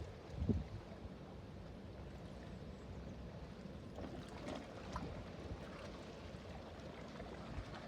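Low, steady rumble of a passing river freight ship, with water washing along its hull. There is a short low thump about half a second in.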